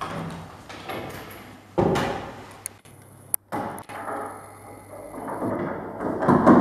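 Irregular knocks and thuds of wood being handled, with a sudden louder knock a little under two seconds in and two sharp clicks around the middle.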